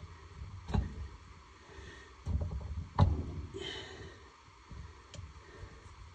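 Metal parts of a Polaris Liberty 800 two-stroke engine being handled and worked into place over a gasket by hand: a sharp knock about a second in, a heavier low scraping shuffle from just past two seconds, and the loudest clunk about three seconds in.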